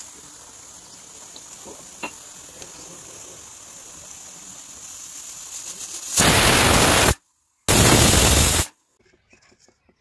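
Stovetop pressure cooker with a weighted whistle valve: a steady hiss of steam that slowly builds, then about six seconds in two loud blasts of steam, each about a second long with a brief gap between them. This is the cooker's whistle, the sign that it has come up to full pressure.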